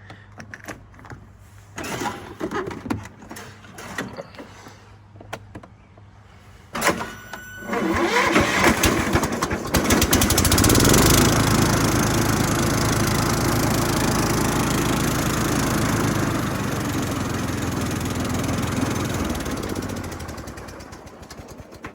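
Toro riding lawn mower engine, cranked and catching about eight seconds in after a few clicks and a sharp knock. It runs steadily, then is shut off and winds down near the end.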